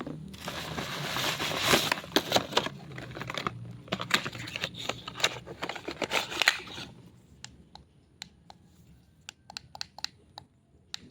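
Plastic packaging crinkling as a handheld fan is handled, then a run of sharp, separate clicks from its switch being pressed again and again with no motor starting: the fan is dead and will not turn on.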